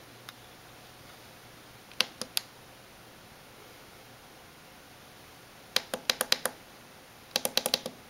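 Control-panel buttons of a Mr. Coffee FTX41CP programmable coffee maker clicking as they are pressed. There are three quick presses about two seconds in, then two rapid runs of about six presses each near the end.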